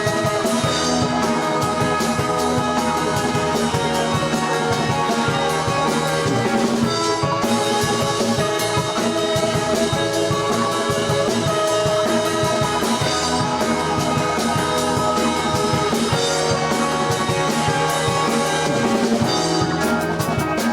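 Rock band playing live, an instrumental passage with guitar and drum kit and no singing. Near the end, fast, even strokes come in high up on the drums.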